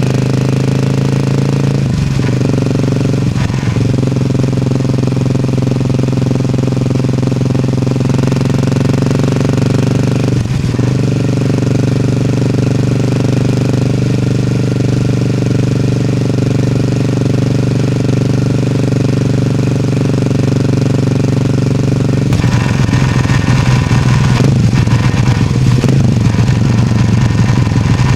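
A vehicle's engine and transmission running with an abnormal noise, the noise that came just before the transmission failed. It is a steady drone that dips briefly twice in the first few seconds and again about ten seconds in. From about 22 seconds in it turns rougher, with a rattling edge.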